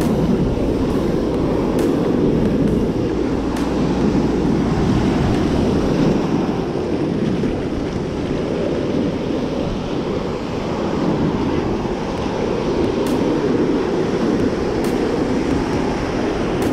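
Ocean surf breaking and washing in foamy sheets, with wind rumbling on the microphone. The noise swells and eases as the waves come and go.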